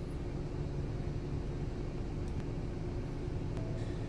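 Steady low hum inside a car's cabin with the vehicle idling, a faint steady tone running through it.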